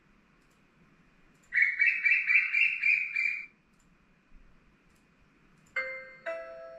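Notification sounds of the Distill Web Monitor browser extension played back from a laptop. First the 'Asian Koel' alert, about two seconds of rapid repeated bird chirps. Then near the end the 'Ding Dong' alert, two doorbell-like chime tones half a second apart, the second slightly higher.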